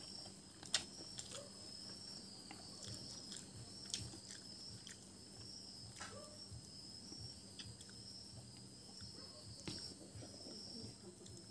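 Chewing and sharp mouth clicks from a person eating rice and fish curry by hand, close to a lapel microphone, the loudest clicks about a second in and near four seconds in. Behind them, crickets chirp steadily.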